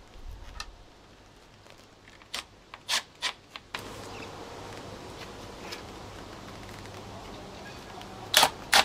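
Scattered sharp clicks and taps of the charge point's plastic casing and screws being handled as it is fastened to its wall bracket. A steady low hum comes in about four seconds in, and near the end there is a quick run of loud, sharp clicks.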